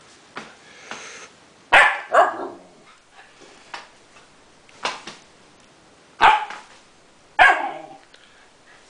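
Siberian Husky puppy barking in short, sharp barks: two close together about two seconds in, a softer one near the middle, and two more near the end.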